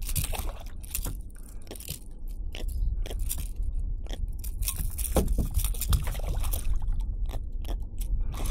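Irregular clicks, scrapes and rattles as a hooked jack and its lure are handled and unhooked by hand, over a steady low rumble.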